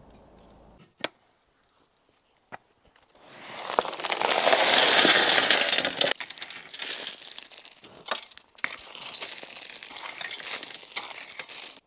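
Gravel sliding off the bed of an electric tipping trailer over its opened drop side. Two sharp clicks come first, then a rushing hiss that swells about three seconds in, and it thins into a rattling trickle of stones that stops suddenly near the end.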